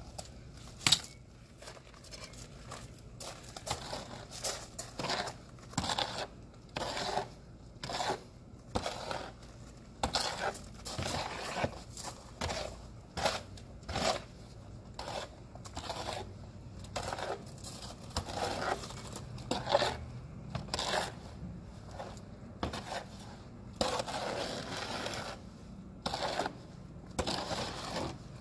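Wet mortar being mixed by hand in a plastic mixing bin: a long-handled tool scraping and churning through the mix in repeated strokes, about one a second, with a sharp knock about a second in.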